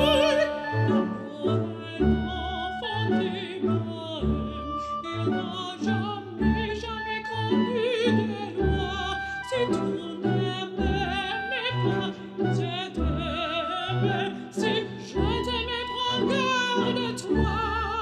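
Background classical music in operatic style: a singing voice with strong vibrato over orchestra, with recurring low bass notes.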